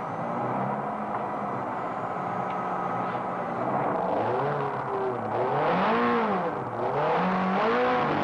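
Ferrari sports car engine heard from inside the cabin, running at a steady pitch at first, then revving up and down over and over, about once a second, from about four seconds in, as the throttle is worked while the car slides on a wet track.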